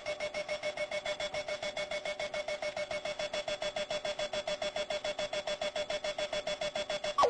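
Runaway alarm clock's electronic alarm beeping in a fast, even train of short chirps, about eight a second, cutting off just before the end.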